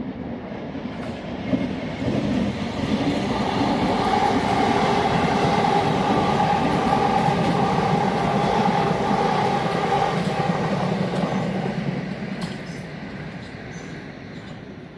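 South Western Railway electric multiple-unit train passing close by. Its sound builds over the first few seconds, holds loud with a steady whine, and fades away near the end, with a few clicks from the wheels on the track.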